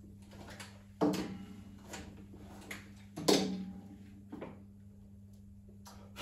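Handling sounds of leather loafers and wooden shoe trees on a table: two sharp knocks with a short ringing, about a second in and just past three seconds, and lighter clicks and taps between, over a steady low hum.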